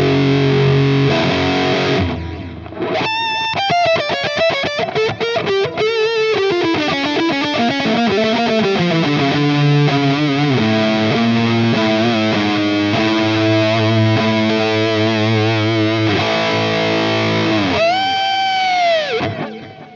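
Laney LC15R all-tube amp overdriven by an electric guitar playing a lead with delay, all the distortion coming from the amp itself: a held chord, then fast runs of notes falling in pitch, then sustained notes. Near the end a bent, wavering note fades out.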